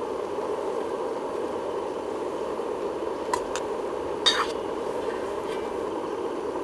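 Steady rushing noise, with two light clicks a little after three seconds in and a brief ringing clink about four seconds in.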